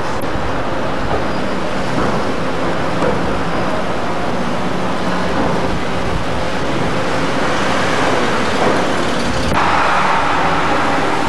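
Steady engine and machinery din on a car ferry's vehicle deck, with a low hum underneath; it grows brighter and a little louder about nine and a half seconds in.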